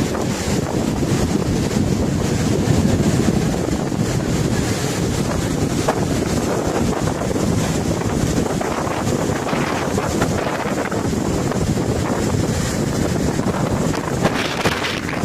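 Flash-flood water rushing past in a steady, loud noise, with wind buffeting the microphone.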